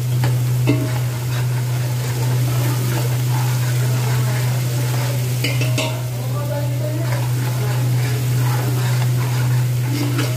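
Chopped garlic sizzling in hot oil in an aluminium pot, stirred and scraped with a steel ladle, over a steady low hum.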